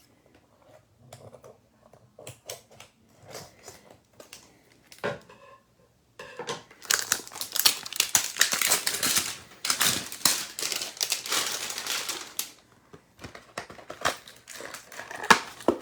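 Plastic wrapping crinkling and tearing as a 2022 Donruss baseball card hanger box is unwrapped and opened: light rustling at first, dense crackling from about six seconds in until near thirteen, then a few light taps of card and cardboard.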